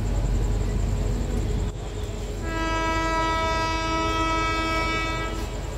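Electric locomotive horn of the accelerating Netaji Express (formerly Kalka Mail), sounding one long steady blast of about three seconds starting about two and a half seconds in. Under it runs a steady low rumble of the approaching train.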